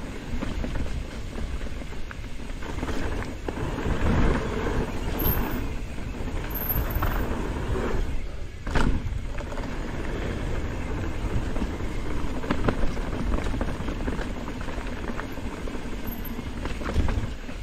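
Wind buffeting the camera microphone and a downhill mountain bike rattling over a dirt trail, a continuous low rumble with jolts, and a sharp knock near the middle.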